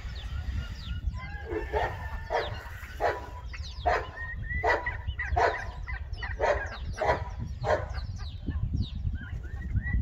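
An animal calling over and over: about nine short, sharp calls in quick succession, then they stop. A steady low rumble runs underneath.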